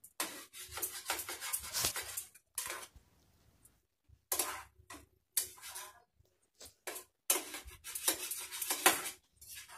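Spatula scraping and pressing through a thick mashed potato and banana flower filling in a frying pan, in irregular strokes with short pauses between them.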